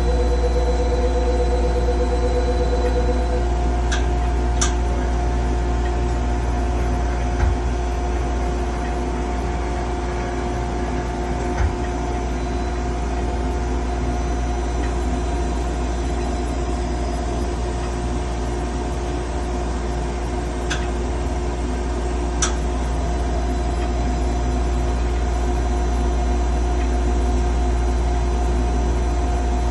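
Gleason 200GH CNC gear hobbing machine running with a steady deep hum and several steady whining tones. A pulsing tone sounds for the first three seconds or so, and a few sharp ticks come now and then.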